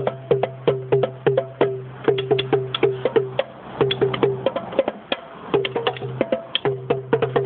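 Small belt-mounted drums struck in a quick, steady rhythm of several sharp, short-ringing hits a second, with a steady low hum underneath that drops out briefly about midway.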